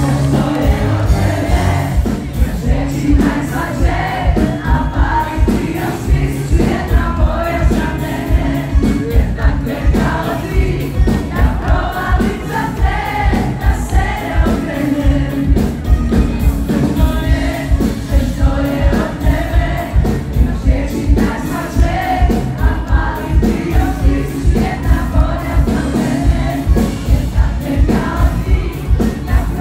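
Live pop band performance: a steady, pulsing drum and bass beat under sung vocals, with several voices singing together.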